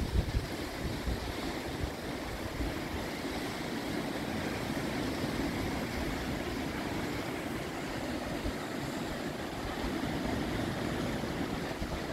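Sea surf washing over rocks at the foot of the cliffs, a steady rushing noise, with wind buffeting the microphone in gusts right at the start.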